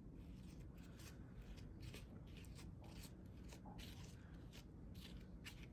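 Faint, repeated scraping of a knife spreading drywall spackle over a plastic stencil on paper, in short strokes about two or three a second.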